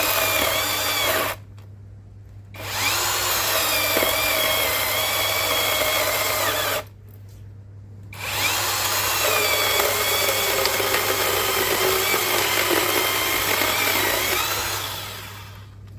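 YOVOT 12-inch cordless battery-powered chainsaw cutting through a log in three runs, with two short pauses between them. The motor's whine dips and wavers under load, and the last run winds down near the end.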